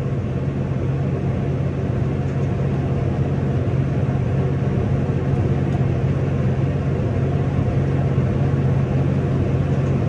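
Tractor engine running at a steady speed, heard from inside the cab as an even, low drone.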